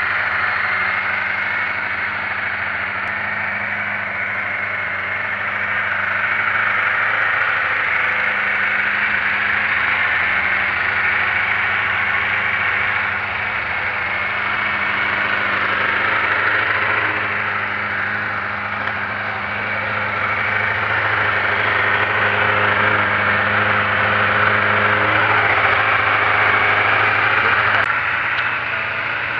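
Honda CBR600 inline four-cylinder motorcycle engine, mounted in a go-kart, running at a steady idle with a slight rise and fall in loudness.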